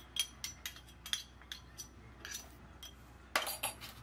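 Metal spoon and small stainless-steel spice bowl clinking: about a dozen light, ringing clinks, with a louder cluster near the end.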